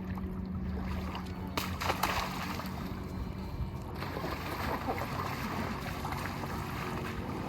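A skimboard slapping onto shallow water about one and a half seconds in, followed by splashing and rushing water as it slides. A low steady hum fades out about halfway through.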